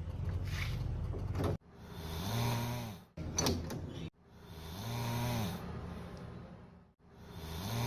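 A person snoring, several loud breaths about three seconds apart. The longer breaths carry a pitched tone that rises and then falls, and each starts and stops abruptly.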